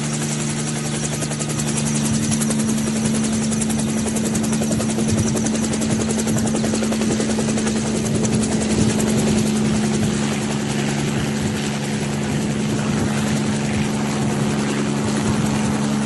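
UH-60 Black Hawk helicopter running steadily: a fast, even rotor chop over a constant engine hum.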